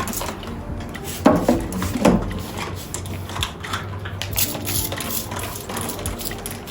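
Light household clatter: scattered clicks and knocks of objects being handled, a couple of louder knocks a little over a second and about two seconds in, over a low steady hum.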